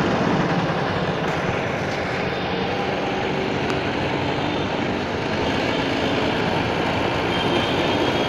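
Honda Activa scooter's single-cylinder four-stroke engine running steadily, held at about 2000 rpm to check the battery charging voltage.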